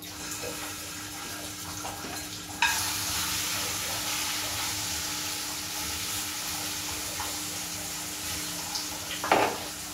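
Marinated chicken pieces sizzling as they go into hot oil in a pot to brown. The sizzle jumps up sharply about two and a half seconds in and then holds steady; a single knock comes near the end.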